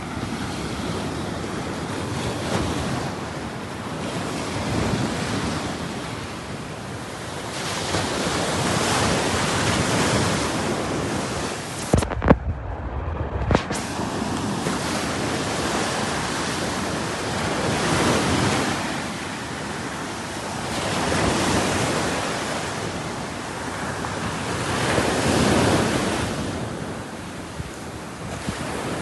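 Ocean waves washing on the shore, the surf swelling and ebbing every few seconds, with wind on the microphone. About twelve seconds in there is a brief low rumble with a few knocks.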